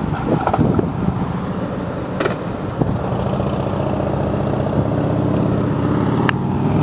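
Heavy trucks of an oversize-load convoy running, a steady low engine drone that grows a little louder over the last few seconds. A few sharp clicks stand out above it.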